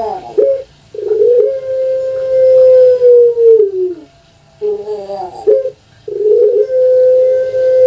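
Puter pelung, a domestic Barbary dove (Streptopelia risoria), cooing its long call twice. Each call is a short choppy note or two followed by one long, steady coo about three seconds long; the first drops in pitch as it fades, and the second is still held near the end.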